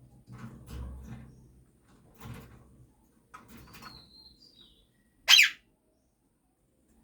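Indian ringneck parrot giving one short, loud, harsh squawk a little over five seconds in, just after a faint high whistle. Quieter low sounds come and go in the first few seconds.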